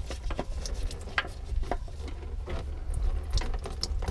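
Irregular sharp clicks and light clatter of hand tools and plastic parts being worked at a car's cartridge oil filter housing during an oil change, over a steady low hum.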